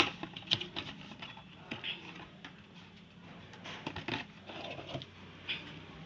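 Scattered light knocks and scrapes of a juice bottle and its packaging being handled and turned, over a faint steady hum.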